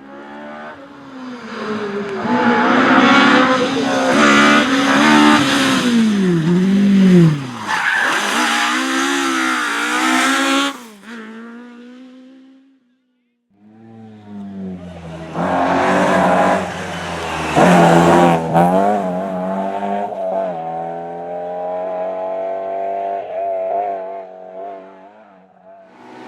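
Rally car engines at full attack, revs climbing and dropping sharply through gear changes and lifts. About halfway the sound cuts out for a moment, and a second car's engine takes over, stepping up through the gears before fading near the end.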